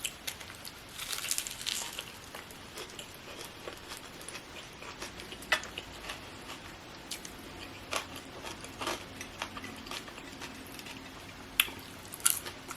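Close-miked eating: chewing with scattered soft crunches and wet mouth clicks, busiest about a second in, then sparse sharp clicks.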